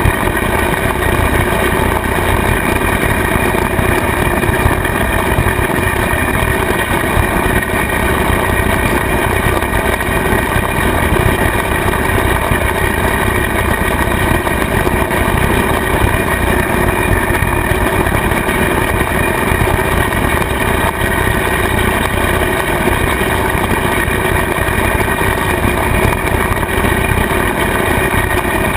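Kubota tractor's diesel engine running steadily at working speed, driving a rotary cutter (bush hog) through grass. The spinning cutter blades add to the noise.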